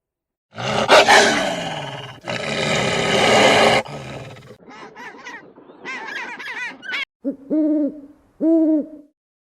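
A run of different animal calls: a loud, harsh call in the first few seconds, then quicker wavering higher-pitched calls, and two short pitched calls near the end.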